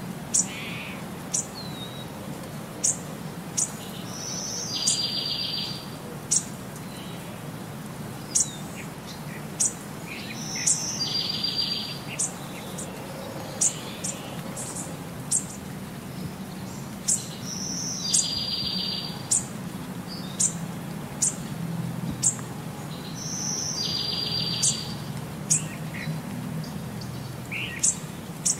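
Birdsong ambience: short high chirps about every second and a half, and a buzzy trill lasting about a second that comes back every six or seven seconds, over a low steady hum. The pattern repeats evenly and runs on unchanged across the cut from the zoo to the savanna, so it is a background nature track rather than the animals on screen.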